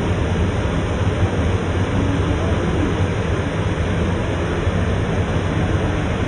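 Rice milling machine running steadily as it hulls paddy into rice: a loud, even mechanical noise with a low hum underneath.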